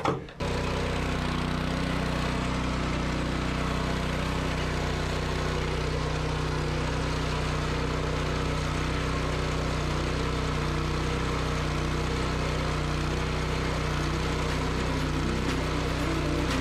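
Small gasoline engine of a concrete curbing machine running at a steady speed, starting about half a second in.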